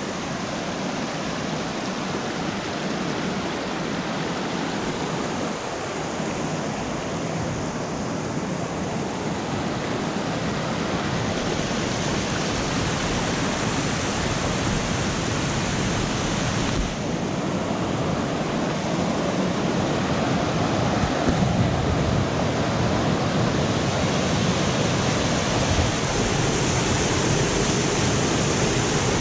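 Fast mountain creek rushing over boulders: a steady whitewater noise that grows louder as the creek gets close.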